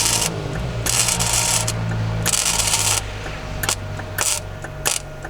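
Gasless flux-core MIG welder arc crackling in several bursts of about a second each, then a few short spits near the end, over a steady low hum.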